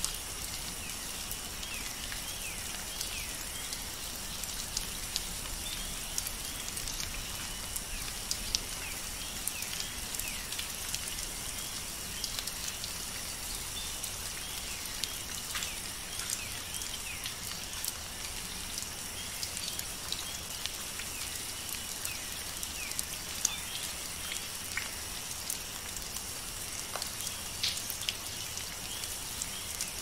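Steady rain, with many small drop ticks scattered through it and faint short falling chirps now and then.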